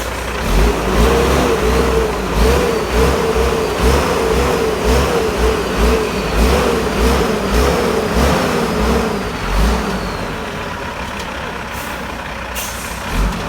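Heavy vehicle engine working under load, its pitch rising and falling in repeated pulses about twice a second with deep low thumps, then settling to a steadier drone near the end.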